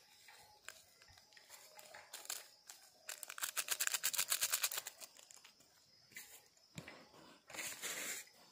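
Seasoning salt being shaken out over a bowl of cut fruit: a rapid crinkling rustle for about two seconds, starting about three seconds in, and a shorter rustle near the end.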